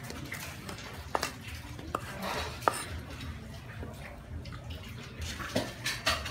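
Kitchen knife chopping herb leaves on a round wooden chopping board: a few sharp, spaced-out knocks of the blade on the wood, with softer scraping as the cut leaves are gathered off the board.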